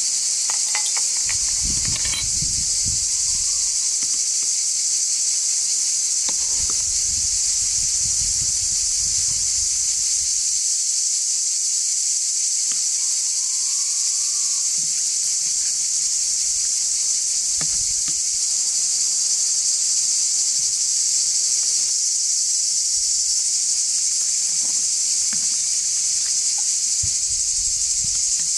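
Steady, high-pitched chorus of insects, with a few light clicks in the first two seconds.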